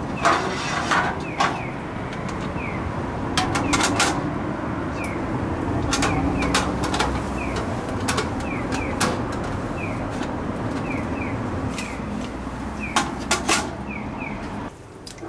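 Stainless-steel stall fittings and metal trays clinking and knocking as they are handled and wiped, scattered sharp knocks over a steady rushing noise. Short high chirps repeat through most of it.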